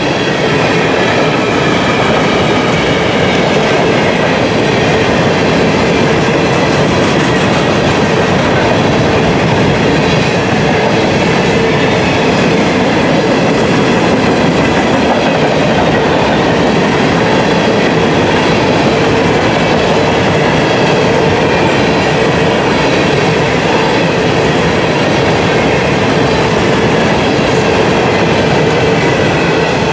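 Norfolk Southern covered hopper cars of a freight train rolling steadily past at close range, a loud even rumble with the clickety-clack of wheels over rail joints and thin, faintly drifting squealing tones from the wheels.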